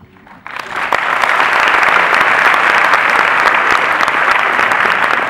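Audience applauding: dense clapping that starts suddenly about half a second in and holds steady.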